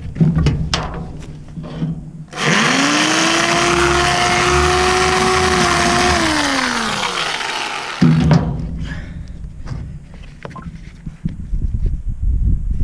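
A handheld power tool's motor spins up with a rising whine and runs for about four seconds with a loud hissing cutting noise. The whine then winds down and the noise stops abruptly, with a few knocks before and after.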